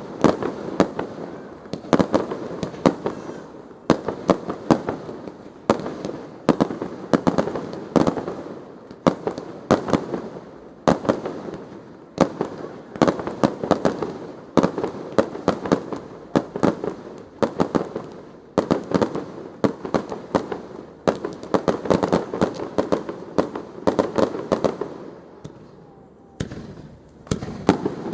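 Fireworks display in a steady barrage: many sharp bangs and crackles a second over an echoing rumble, easing off briefly near the end and then starting again.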